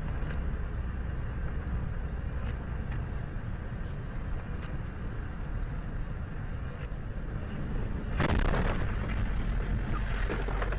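Steady low rumble of a vehicle driving on a snow-covered highway, engine and road noise heard from inside the cab. About eight seconds in it swells into a louder rushing noise.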